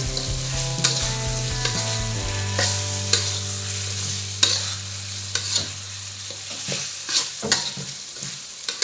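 Spatula scraping and knocking against a wok while stirring fried chicken into green chili sambal, which sizzles in the oil. There are irregular sharp clicks throughout.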